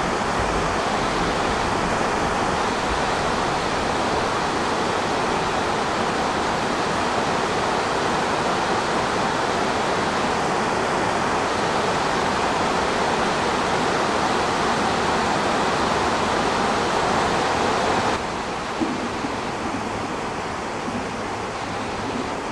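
Steady rushing hiss that drops abruptly to a lower level about eighteen seconds in.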